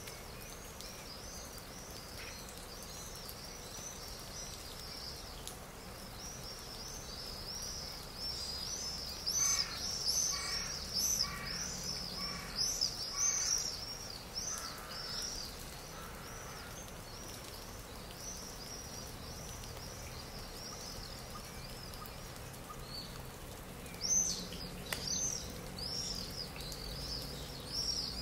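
Stock nature soundscape of continual small-bird chirping, with a crow cawing about five times in a row near the middle.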